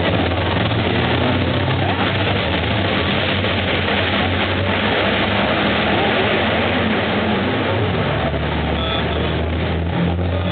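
Racing trucks' diesel engines running at the chicane: a steady low engine drone under a loud, even rushing noise.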